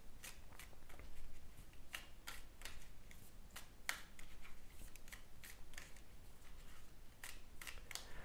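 Deck of playing cards being handled: a quiet string of light, irregular clicks and snaps.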